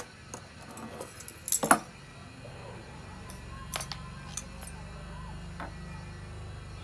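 A few sharp clicks and light clinks over a low steady hum, the loudest a close pair about a second and a half in.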